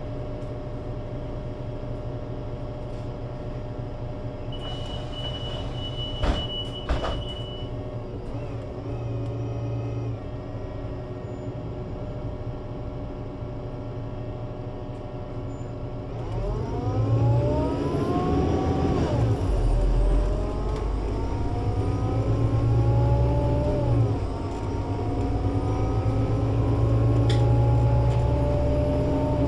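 Solaris Urbino 18 IV articulated bus with a DAF diesel engine and Voith DIWA 6 automatic gearbox, heard from inside the passenger cabin: the engine runs steadily at idle, with a steady beep and two knocks about six seconds in. About sixteen seconds in the bus pulls away, the engine rising in pitch with a high gearbox whine, dropping back at a gear change about three seconds later and again briefly about eight seconds later before climbing again.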